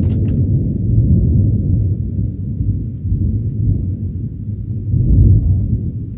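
Very loud thunder rumbling deeply and continuously, swelling again about five seconds in, with two short sharp cracks right at the start.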